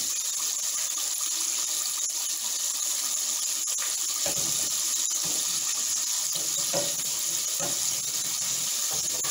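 Pickerel fillets deep-frying in a pot of hot oil: a steady, bright sizzling hiss. In the second half there are a few light knocks as a wire skimmer strainer moves against the pot.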